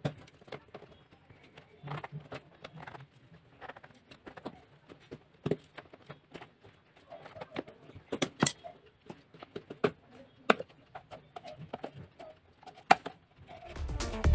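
Small knife blade cutting and scraping around the rim of a plastic putty tub's lid: irregular clicks, scrapes and sharp snaps of hard plastic, with a few louder snaps in the second half.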